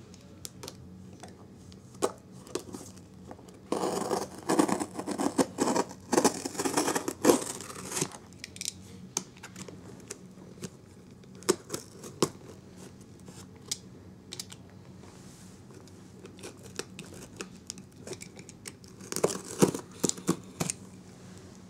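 Utility knife slitting and tearing the packing tape on a cardboard shipping box, in a run of scraping, ripping strokes about four seconds in and another short burst near the end, with scattered clicks and taps between.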